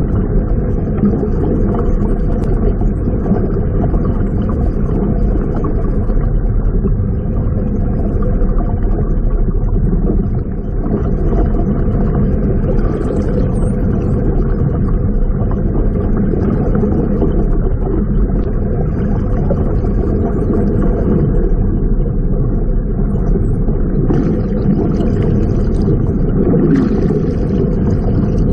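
Steady low underwater rumble and water noise on an underwater camera, with faint high squeaks now and then.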